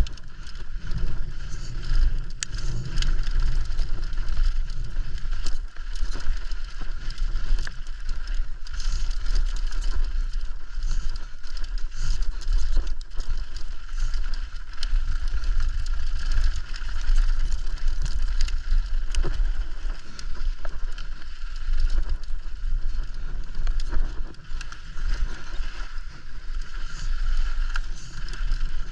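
Mountain bike riding fast down a rough trail, heard from an action camera on the bike or rider: a steady rush of wind on the microphone with a low rumble, tyres on dirt and stones, and constant small clicks and rattles from the bike.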